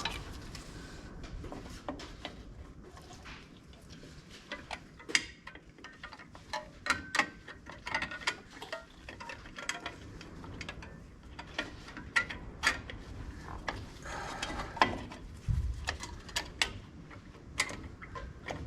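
Irregular metallic clicks and clinks of drum-brake parts being handled: a brake-shoe hold-down spring and cup being pushed onto its pin and turned to lock. A dull low knock comes about three quarters of the way through.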